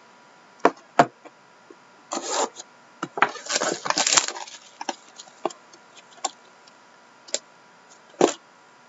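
Trading cards and their packaging being handled on a tabletop: a series of sharp taps and clicks, with a stretch of rustling packaging in the middle.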